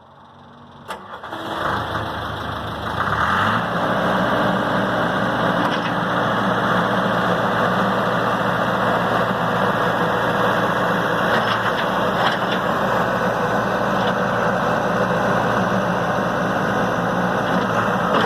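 Case 1835 skid steer's engine starting: a click about a second in, a rising catch over the next couple of seconds, then steady running.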